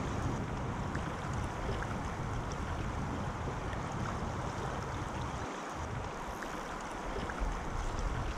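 Steady rush of shallow river water flowing and lapping right at the microphone, with small scattered clicks.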